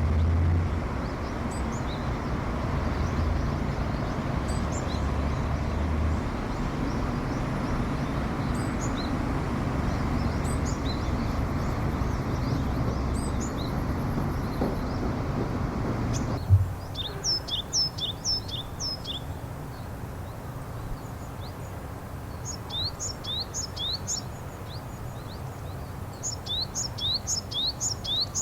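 Japanese tit calling. At first its faint high notes sit over a steady low rumble of background noise. From about halfway there are three clear bursts of quick, sharp, high notes that slur downward, several notes to a burst.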